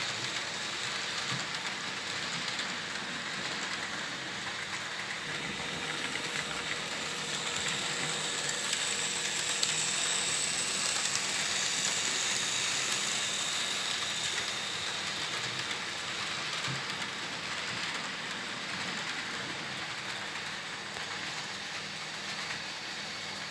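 Märklin model trains running on the track: a steady whirring rattle of the small electric drive motor and wheels on the rails. It grows a little louder about halfway through as the locomotive passes close by.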